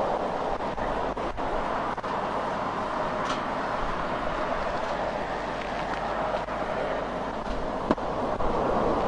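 Steady road noise of highway traffic passing at speed, with a sharper click about eight seconds in.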